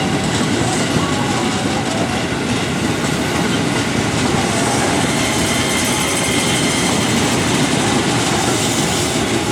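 A train running past close by: a steady, loud noise of wheels on the rails.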